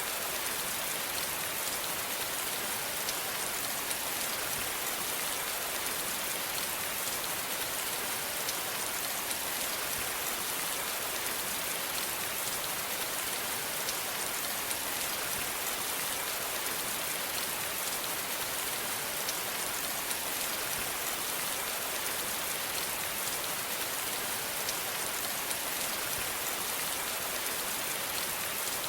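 Steady rain falling, an even hiss with many fine drop ticks, unchanging throughout.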